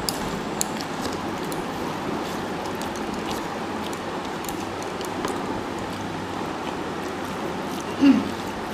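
Hand-eating sounds: fingers mixing rice and curry on plates and mouths chewing, with a few small clicks, over a steady background hiss.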